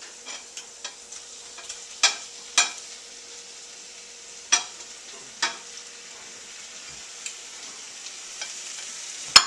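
A spoon stirring a cheese mixture in a pot on the stove, with several sharp, irregular clacks of the spoon against the pot over a faint steady sizzle.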